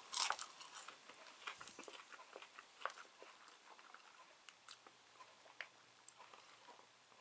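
Close-up chewing of French fries: a string of small wet mouth clicks and crackles, loudest in the first second, then fainter and scattered.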